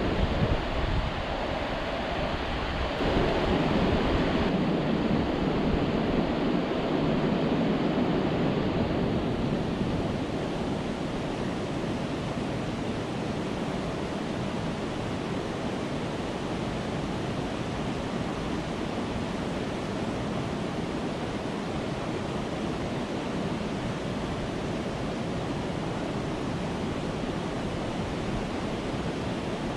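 Steady rush of white water pouring over a river weir and churning through the weir pool. Wind buffets the microphone with a low rumble near the start, and the rush is a little louder for about the first ten seconds before settling.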